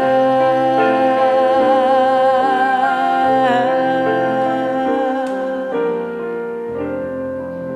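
Closing bars of a soft ballad: sustained keyboard and piano chords under a held, wavering melody note, growing quieter after about six seconds.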